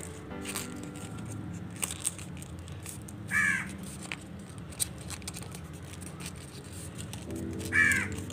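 A bird calling outdoors: two short, harsh calls about four seconds apart, the loudest sounds here. Faint crinkles and clicks of paper being folded by hand come in between.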